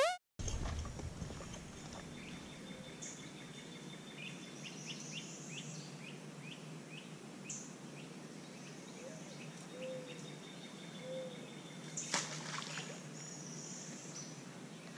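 Outdoor ambience on a wooded riverbank: birds calling, with a run of quick chirps over a steady background hiss, and a single sharp knock about twelve seconds in.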